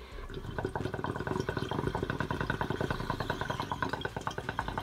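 Glass water bong bubbling rapidly and evenly as smoke is drawn through the water during a hit.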